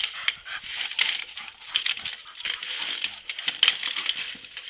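Black corrugated plastic drain pipe being bitten and dragged by a dog, crackling and scraping over straw-covered dirt in a busy, irregular run of clicks and rustles.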